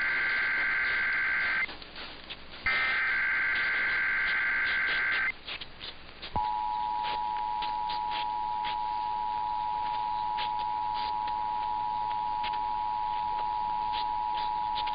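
Emergency Alert System SAME header: the end of one harsh, warbling digital data burst, then a second burst about two and a half seconds long, encoding the alert's origin, event and area. About six seconds in, the EAS attention signal follows: a steady two-tone beep held for about eight and a half seconds, announcing the voice message to come.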